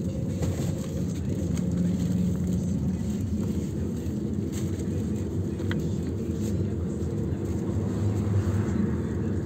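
Minibus driving along a street, heard from inside the cabin: a steady low engine hum under road rumble.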